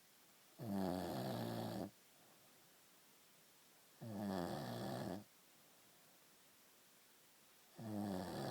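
A man snoring in his sleep: three long snores with a buzzing, pitched tone, about three and a half seconds apart, with quiet breathing gaps between. The third snore starts near the end.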